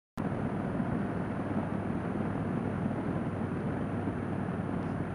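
Harley-Davidson Seventy-Two's V-twin engine running steadily at road speed, heard from the bike with heavy wind rush on the microphone. The sound starts abruptly just after the start.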